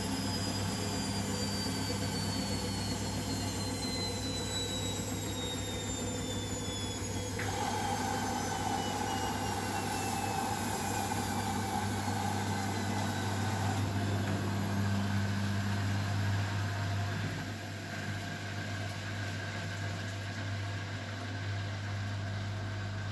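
Beko washing machine's motor whining as the drum slows down, the whine falling slowly in pitch over several seconds over a steady low hum. A new steady tone joins about a third of the way in.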